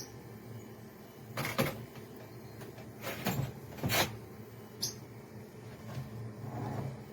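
Rigid plastic crate parts being handled: a sharp click, then three short scraping knocks about a second apart, and another click a little later.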